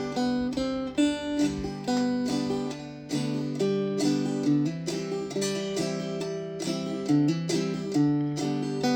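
Gourd banjo played clawhammer style in open G tuning (gDGBD): a slow, even bum-ditty rhythm of single plucked melody notes and brushed strums.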